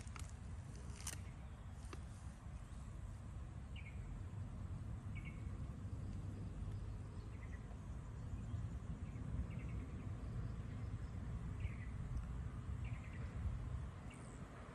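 Short, high bird chirps every second or two over a steady low rumble of outdoor noise, with a few sharp clicks in the first second or so.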